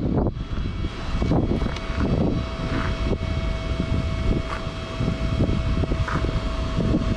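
Honda CBR650R inline-four motorcycle engine running, with a steady whine over a dense low rumble.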